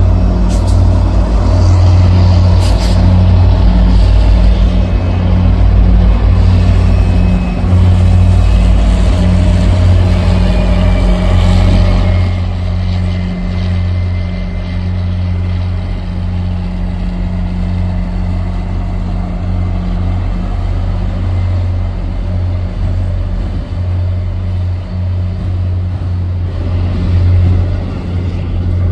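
MBTA commuter rail diesel locomotive running with a loud, steady low engine drone as the train moves slowly over the bridge tracks. The drone gets quieter about 12 seconds in and holds steady after that.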